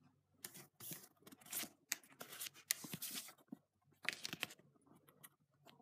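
Panini sticker packet and its paper stickers being handled: a string of short paper rips, crinkles and rustles as the packet is torn and the stickers are pulled out and spread.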